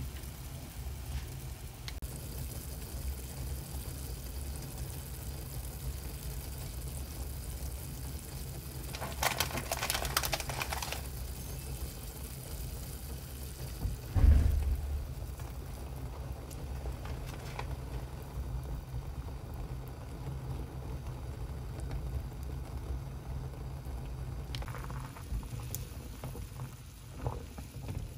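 Ramyeon broth at a rolling boil in a stainless steel pot on a gas stove: steady bubbling with a low rumble. It is broken by a brief louder rustle about a third of the way in and a single loud thump about halfway.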